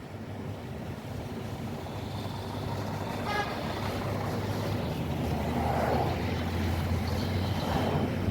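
Road and traffic noise heard from a moving vehicle, with a steady low rumble and wind on the microphone growing louder. A brief horn toot sounds about three seconds in.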